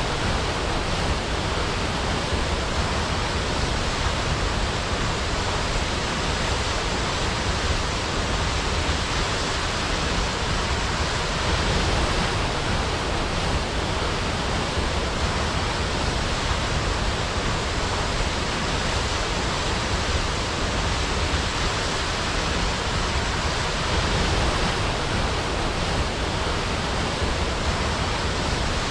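Floodwater from a drained beaver pond rushing steadily through a large culvert that has just been cleared of a beaver dam, a loud, even rush of water.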